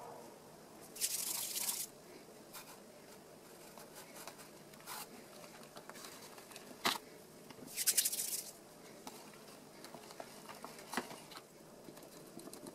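Hands handling a plastic sheet and a skateboard wheel: two short bursts of plastic crinkling, about a second in and again around eight seconds in, with a few light clicks and knocks between them.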